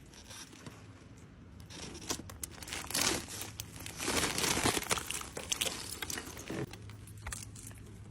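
Irregular crackling and crunching noise, thickest about three seconds in and again around four to five seconds in, over a faint steady hum.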